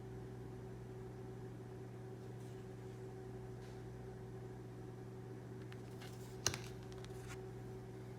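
Large tarot cards being handled and shuffled through: a few faint light taps and one sharp click about six and a half seconds in, over a steady low hum.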